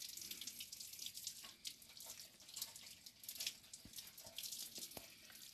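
Faint water running from an outdoor garden tap, trickling and splashing over comfrey roots as they are rinsed by hand.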